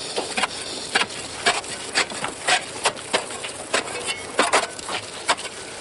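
Workers pounding with hand tools: a run of sharp knocks, about two to three a second and out of step, as several strikers work at once.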